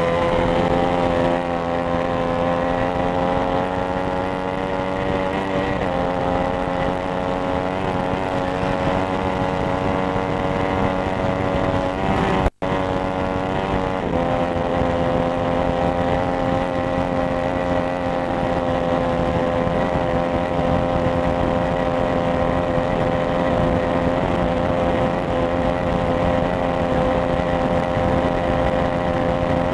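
Ducati 995 superbike's V-twin engine running at high, nearly steady revs, heard on board over wind rush. The pitch shifts slightly about six seconds in, and the sound cuts out for an instant near the middle.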